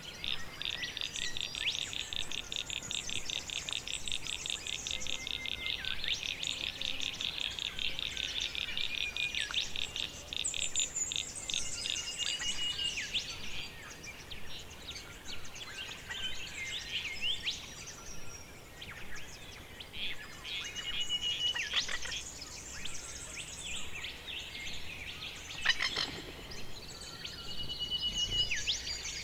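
Forest birds singing: a fast pulsing trill of high notes through roughly the first ten seconds, then scattered chirps and short whistles. A single sharp click stands out about 26 seconds in.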